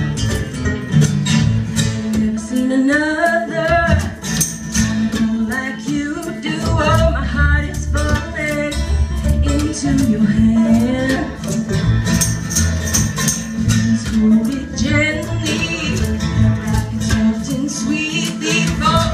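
Acoustic string band playing a bluegrass-style tune: strummed acoustic guitar, upright bass, mandolin and banjo. A woman's singing comes in about three seconds in and carries on over the band.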